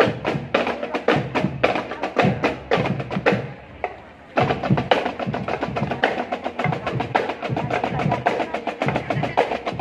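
Marching drum band percussion: snare and bass drums playing fast, dense strokes, easing off briefly about three and a half seconds in and then coming back in full.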